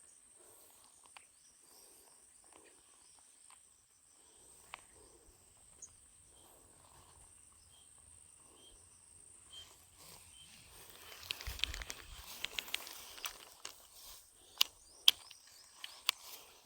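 Steady high-pitched insect buzzing over outdoor background noise, with rustling and several sharp clicks in the second half, the loudest click near the end.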